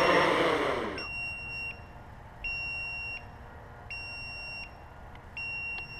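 Hexacopter's brushless motors and propellers spinning down with a falling whir, dying away about a second in. Then a high electronic beep repeats about every second and a half, each beep a steady tone lasting under a second.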